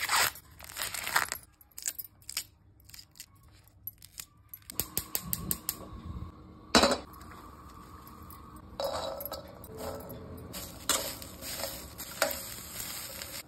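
Green husks being torn and peeled off ears of sweet corn in quick crackly rips, then a single sharp click about seven seconds in, then corn kernels being stirred and scraped around a steel pan.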